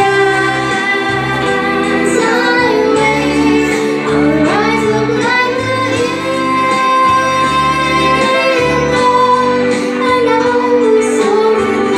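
A girl singing into a handheld microphone, amplified through a PA speaker, holding long notes over a sustained instrumental accompaniment.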